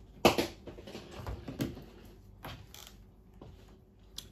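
Handling noises: one sharp knock, then several lighter clunks and rattles and a final click, as a handheld digital multimeter and its probe leads are fetched and set down.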